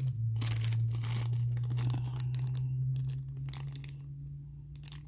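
Clear plastic bag crinkling in the fingers as a bagged plastic miniature is handled, in irregular crackles, with a steady low hum underneath.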